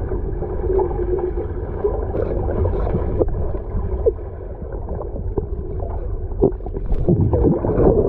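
Pool water heard by a camera microphone held underwater: a muffled, dull low rumble with bubbly clicks. It grows choppier and louder near the end with splashing as the camera comes up through the surface.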